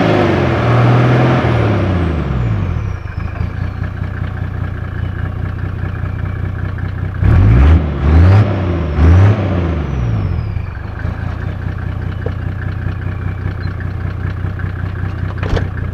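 Mercedes-Benz W124 300D turbo's OM603 turbodiesel straight-six running with no exhaust silencer. It drops from a rev to idle in the first couple of seconds, is blipped three times in quick succession about halfway through, then idles again.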